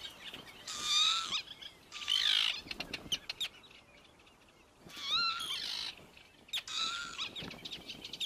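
Northern lapwings calling over their nesting patch: about four calls with a wheezy edge, each well under a second, with a quieter gap in the middle. These are the birds defending their territory.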